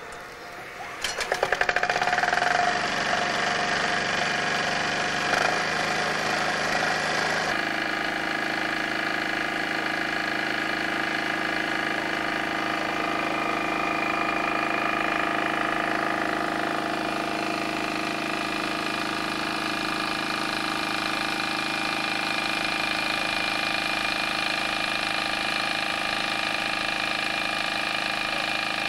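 Small petrol engine of a portable water pump being pull-started, catching about a second in and then running steadily at a fixed speed while it pumps water out.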